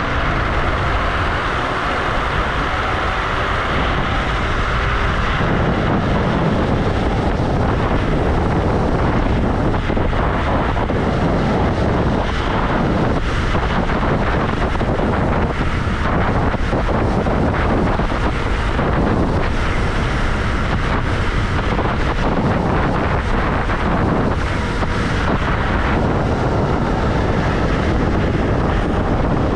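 Wind buffeting a chest-worn microphone over the steady rumble of street tyres on the road from a Wolf Warrior dual-motor electric scooter under way. The noise is continuous and even, with no engine note.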